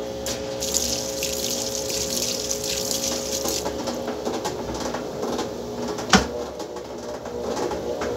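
Top-loading washing machine running with its tub whirling the load, a steady motor hum under it. Water rushes and hisses for the first three and a half seconds, and there is one sharp knock about six seconds in.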